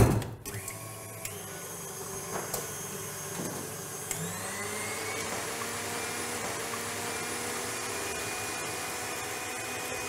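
Stand mixer with a wire whisk beating egg whites and sugar for a sponge. A clunk as it starts, then a steady motor whine that rises in pitch about four seconds in as it speeds up, and holds at the higher speed.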